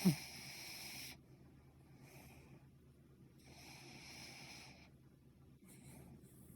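A sleeping Kai Ken dog snoring: a short, loud snort with a falling pitch right at the start, then hissy, wheezy breaths about every one and a half to two seconds.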